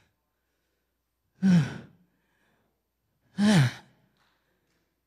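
A woman's voice making two short, breathy groans about two seconds apart, each sliding down in pitch. They act out the strain of a laboured, struggling step.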